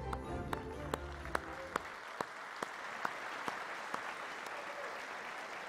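Audience applauding, with some single claps standing out. The last held notes of music die away about two seconds in.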